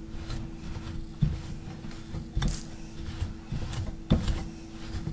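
Metal pastry blender cutting cold butter into a flour and sugar streusel in a glass bowl: uneven knocks and scrapes of the blades against the bowl, roughly one a second.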